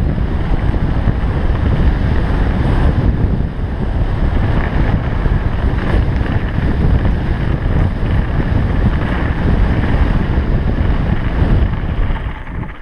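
Wind buffeting the microphone of a helmet-mounted action camera on a fast mountain-bike descent, mixed with the rumble of knobby tyres rolling over dirt and gravel. The noise dies down near the end.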